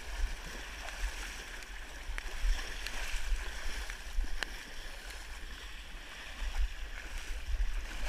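Legs wading and splashing through knee-deep muddy floodwater, heard on a body-worn action camera, with an uneven low rumble of wind and movement on the microphone.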